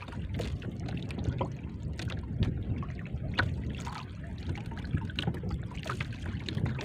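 Water lapping and trickling against the hull of a small outrigger boat, with a steady low rumble of wind on the microphone and many small, irregular splashes and clicks.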